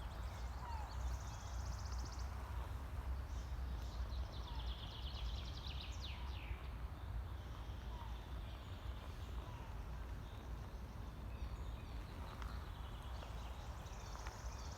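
Forest birdsong: several high trills, one of them longer with quick downward sweeps, and a few faint short chirps, over a steady low rumble of wind.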